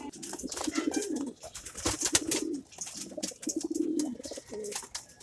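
Racing pigeons cooing, several low cooing phrases one after another, with scattered sharp clicks and rustles among them.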